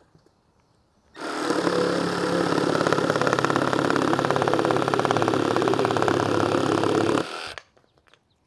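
Milwaukee M12 cordless jigsaw cutting through a softwood board. It starts about a second in, runs steadily through the cut for about six seconds, and stops abruptly.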